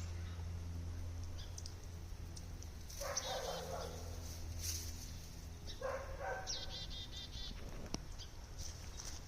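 Ducks calling: two short bursts of calls, about three seconds and six seconds in, with quick high peeps over them.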